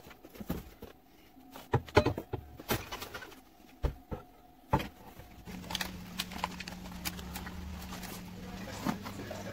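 Cardboard boxes and plastic packaging being cut open and handled: scattered sharp knocks, taps and rustles for about five seconds, then a steady low hum.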